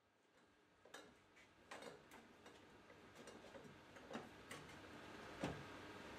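Faint, irregular clicks and light knocks from a cable and adaptor being handled and set into an aluminium UV exposure box; the loudest knock comes about five and a half seconds in.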